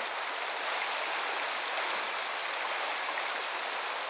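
Fast river current rushing over a shallow riffle: a steady rush of water with small splashes.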